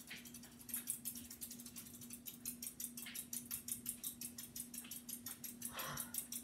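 Hampton Bay Landmark III Plus ceiling fan running on high: a steady motor hum with a fast, even pulsing several times a second.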